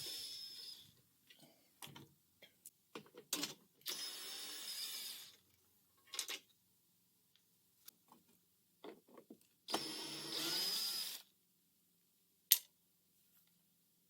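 A small handheld electric power tool running in three short bursts of about a second and a half each, with a steady high whine, separated by small clicks and knocks of parts being handled; a sharp click near the end.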